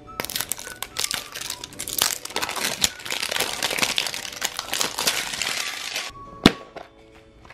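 Crinkling and crackling of plastic shrink wrap being torn off a large plastic surprise egg. About six and a half seconds in comes a single loud sharp click as the plastic egg halves snap apart.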